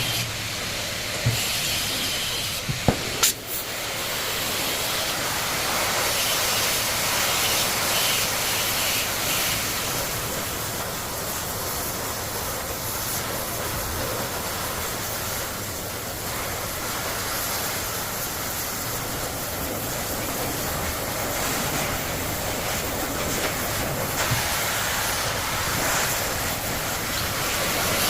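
Metalworking on 10 mm steel plate: a steady loud hissing noise, with a few sharp knocks about one to three seconds in.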